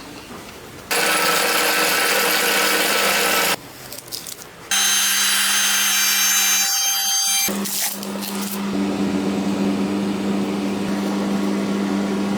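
Woodturning lathe running with a tool working the spinning wood: loud, noisy cutting that starts and stops abruptly several times, with a steady motor hum through the second half.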